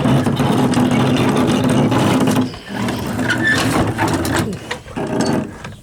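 The hand crank on a grain truck's box is being turned to raise the rear gate door, with its gearing and ratchet clicking under load.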